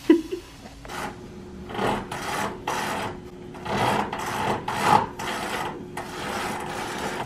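Fabric Roman shade being hauled up by hand, its cord and folding fabric rubbing in a series of short strokes, about ten in six seconds. A brief sharp sound right at the start.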